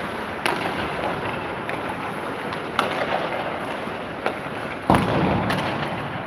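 Ice hockey play on an indoor rink: about five sharp knocks of sticks and puck over a steady wash of rink noise. The loudest knock, about five seconds in, has a short booming after-ring.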